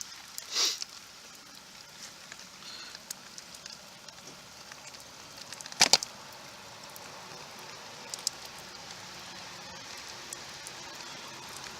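Steady hiss of rain falling on surfaces, with a few sharp clicks or knocks: one just under a second in, and the loudest, a double click, about six seconds in.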